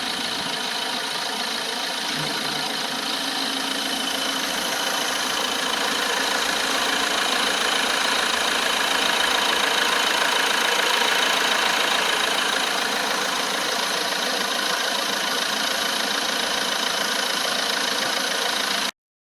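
Mercedes-Benz C220 CDI four-cylinder diesel engine idling steadily.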